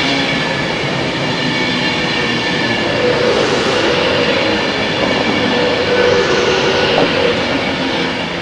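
Class 390 Pendolino electric train passing at speed close by: a steady rush of wheels on rail and air with a low hum, swelling twice as bogies go past and starting to fade near the end as the last coaches draw away.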